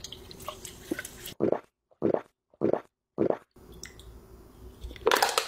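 A person gulping soda straight from a can: four separate swallows in about two seconds, after a few faint squelchy ticks from a lemon being squeezed into the can.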